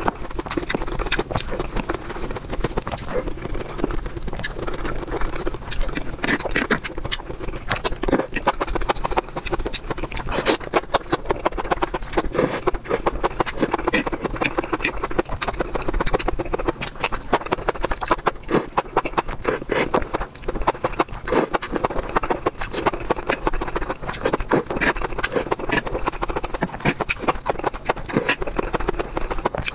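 Close-miked eating sounds: wet chewing, lip-smacking and slurping of saucy spicy mushrooms and noodles, a rapid unbroken run of small clicks and smacks.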